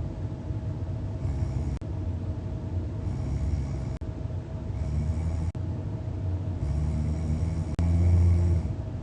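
A person snoring in a deep, rumbling, elephant-like way, in repeated breaths that swell and fade. The loudest snore comes near the end.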